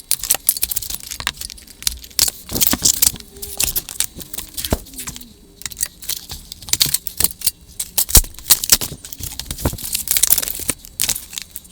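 Packing material being pulled off a boxed bike: plastic wrap and foam crinkling and rustling, with many sharp clicks and an occasional knock as zip ties are snipped and pulled away.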